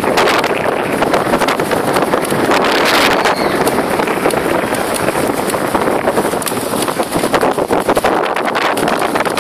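Sled runners hissing and scraping over packed snow and ice at speed, rattling over bumps, with wind buffeting the microphone. The rattle grows denser in the second half as the surface turns icier.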